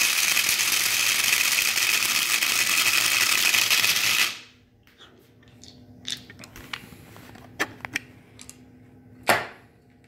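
Electric blade coffee grinder running, loaded with hard dry shelled grain corn kernels, and grinding them. It stops abruptly about four seconds in. A few light clicks follow, and a louder knock comes near the end.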